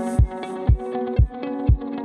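Background music with a steady low beat, about two beats a second, under sustained instrumental tones.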